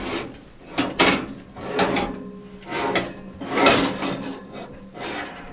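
Household handling sounds in a small kitchen: about six knocks and sliding rubs, roughly one a second, the loudest a little past halfway.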